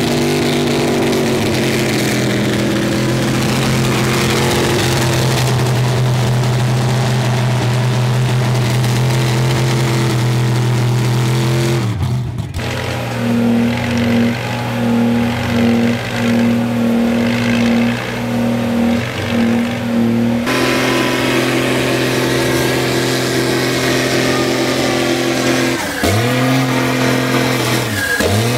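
Lifted mud trucks on tractor tires doing burnouts: big engines held at high, steady revs, loud. In the middle the revs pulse up and down about once a second, and near the end they dip briefly twice.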